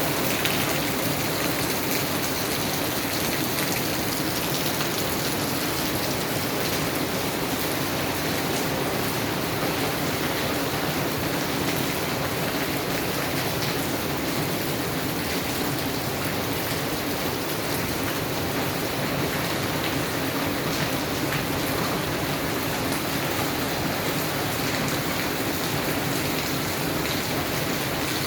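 Steady rain falling, an even hiss with many small drop ticks, at a constant level throughout.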